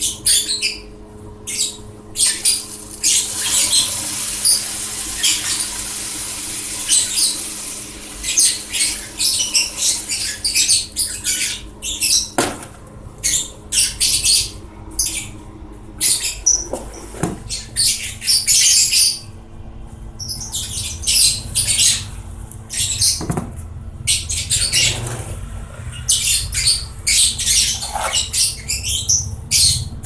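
Small electric blower fan of a seed-hull winnower running with a steady hum, its tone shifting slightly about halfway through. Over it, many quick high chirps and squeaks, and a few sharp knocks as the drawer is handled.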